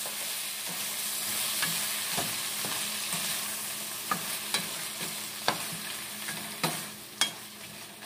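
Shrimp heads, onion and chiles sizzling as they fry in a stainless steel skillet, with a wooden spoon stirring them and knocking against the pan. The sizzle eases toward the end while the spoon's knocks come more often, about two a second.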